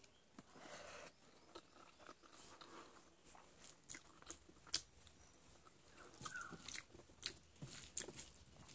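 A person chewing and biting into cooked chicken close to the microphone: irregular clicks and crunches, the sharpest about halfway through.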